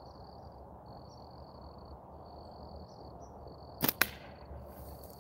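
A tube-band slingshot fires a load of three 8 mm balls about four seconds in: a sharp double snap as the bands release. Crickets chirp in a steady high trill throughout.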